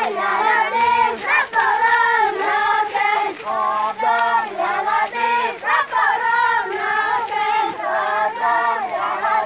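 A group of children chanting a prayer for rain together as they walk, their voices rising and falling in a sung chant.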